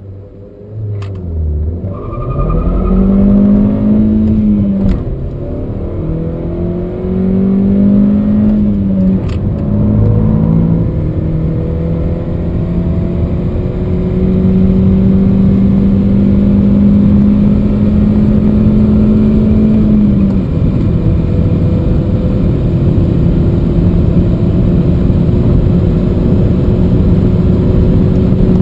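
Seat Leon 1.4 TSI's turbocharged four-cylinder petrol engine under full-throttle acceleration from a standstill. The engine note climbs through the gears and drops sharply at each of four upshifts, with each climb slower in the higher gears.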